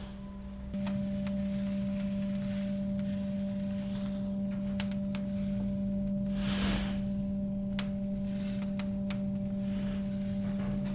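A steady electrical machine hum, with a few light metallic clicks of kebab skewers being handled on the grill.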